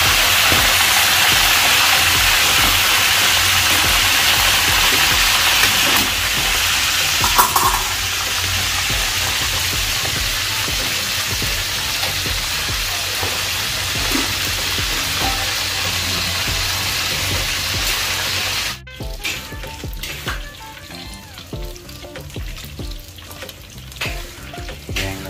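Battered frog pieces deep-frying in very hot oil, a steady loud sizzle. It eases a little about six seconds in and cuts off suddenly near the end, leaving quieter scattered clicks and knocks.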